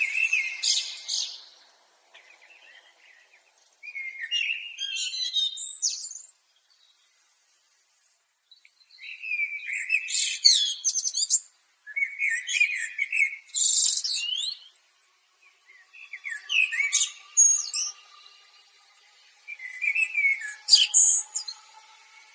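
Common blackbird (Eurasian blackbird) singing: about six separate phrases, each a lower warbled motif that breaks into a high, rapid twitter, with pauses of a second or two between phrases. A faint steady tone joins in the last few seconds.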